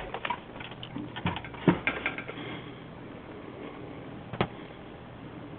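Small clicks and taps of computer parts being handled during a PC build: a quick cluster in the first two seconds and one more click about four seconds in, over a faint steady hum.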